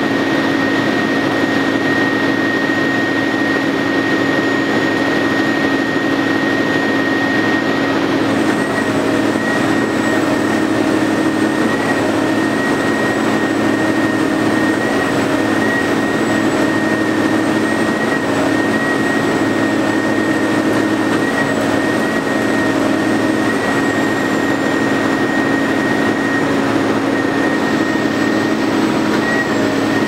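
Concrete pump running steadily while concrete is pumped through its hose: a constant engine drone with a high, steady whine.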